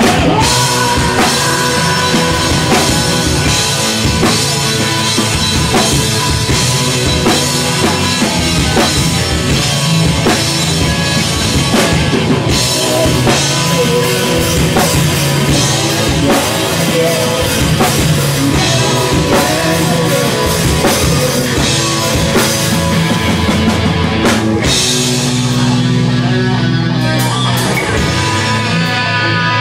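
Live rock band playing loud: distorted electric guitars, electric bass and a full drum kit. Near the end the drumming thins out and the guitars carry on.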